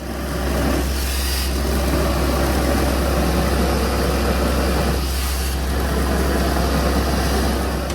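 An engine idling steadily, with a constant low hum under an even mechanical noise.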